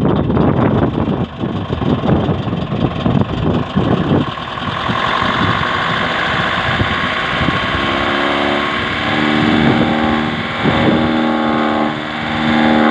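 Tractor-driven straw chopping machine running as straw is fed into it: dense irregular rattling knocks for the first few seconds, then a steadier rushing noise as the chopped straw is blown out, with a droning hum over the last few seconds.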